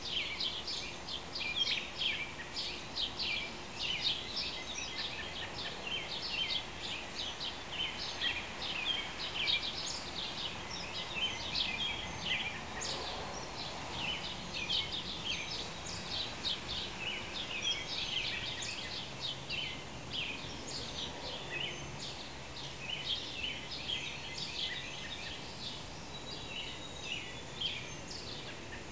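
Chorus of songbirds chirping and singing, many short high calls overlapping without a break.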